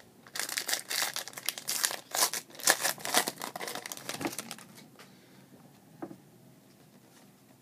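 Foil wrapper of a 2013 Topps Tribute trading card pack crinkling as it is torn open and the cards are pulled out. The crackling runs for about four seconds, then dies down to a couple of light ticks.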